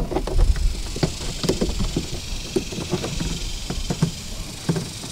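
Rubber car door weather strip being pressed and tapped back onto the door frame by hand: a series of irregular soft knocks and taps over a low rumble that is strongest near the start.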